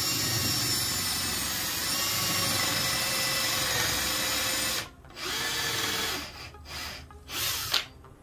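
Cordless drill running in the wood for 1/4-20 threaded inserts: one long steady run that stops suddenly about five seconds in, then a shorter run of about a second and a few brief trigger pulls.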